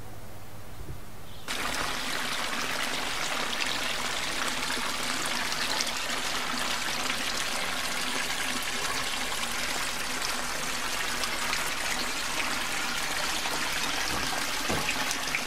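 Water trickling and running steadily, a constant splashing hiss that cuts in abruptly about a second and a half in.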